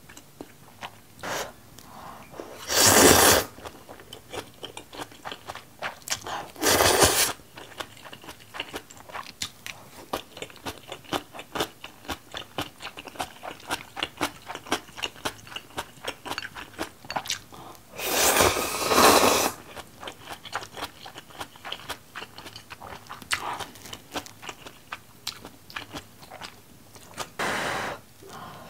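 A person eating spicy seafood jjambbong ramen: close, steady chewing with small wet clicks, broken by a few long, loud slurps of noodles, the longest about 18 seconds in.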